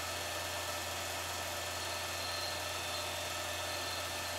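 Steady low electrical hum with a faint high machine whine and hiss, unchanging throughout.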